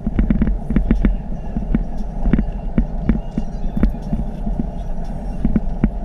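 SUV driving over an old, uneven brick road: a steady low rumble of tyre and road noise, broken by frequent irregular knocks and clicks as the wheels jolt over the bricks.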